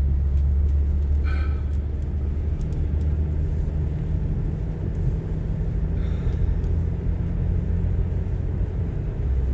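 Car interior driving noise: the engine and tyres give a steady low rumble, with two faint brief higher sounds about a second in and about six seconds in.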